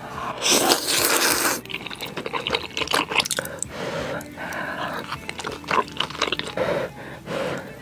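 A person eating spicy noodles close to the microphone. A long, loud slurp comes about half a second in, followed by wet chewing and smacking.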